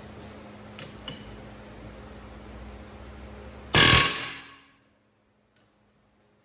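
A pneumatic impact tool with a bolt-breaker attachment fires one short, loud burst on a seized brake rotor screw, about four seconds in. A couple of light metal clicks come before it.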